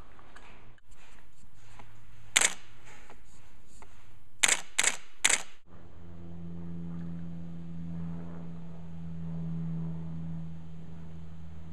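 Camera shutter clicks: one sharp click, then three more in quick succession a couple of seconds later. After about six seconds a low, steady hum takes over.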